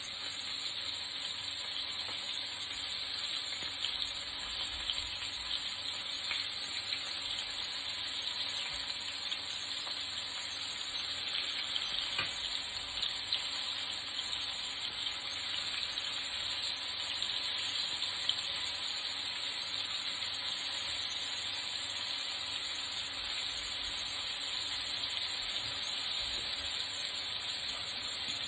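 Flour-coated chicken strips shallow-frying in hot vegetable oil in a frying pan: a steady sizzle with fine crackles and small pops throughout.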